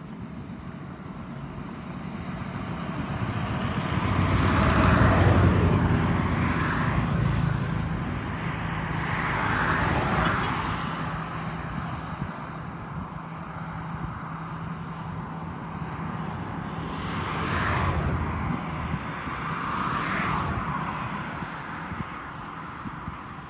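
Road vehicles passing close by, one after another: four pass-bys that each swell and fade, the loudest about five seconds in, with a steady engine hum under the first two.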